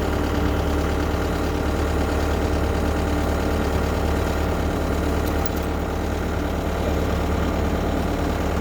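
Caterpillar 304CR mini excavator's diesel engine idling steadily.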